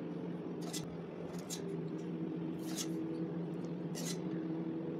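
Thick custard milk ladled onto rusks in a glass dish: a few short, soft wet scraping and splatting sounds about a second apart, over a steady low hum.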